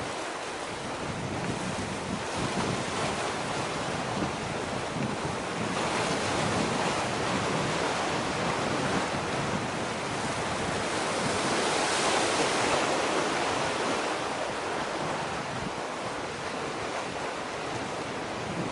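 Waves washing ashore, with wind on the microphone: a steady rushing that swells twice, about a third of the way in and again a little past the middle.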